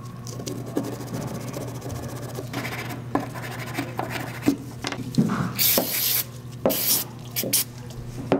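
A small wire brush scrubbing a steel brake caliper slide pin in quick rasping strokes, followed by short hissy bursts and rubbing as the pin is worked over and wiped on a rag.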